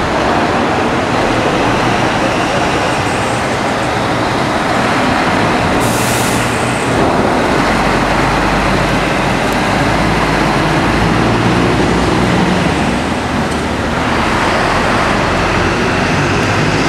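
Scania heavy-haulage trucks' diesel engines running as they pull multi-axle low-loader trailers slowly past. There is a short burst of air hiss about six seconds in.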